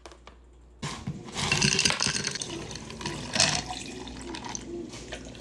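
A tap is turned on about a second in and water runs steadily into a sink.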